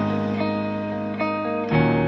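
Background music: an instrumental tune of held notes, with a new note or chord coming in about every half second.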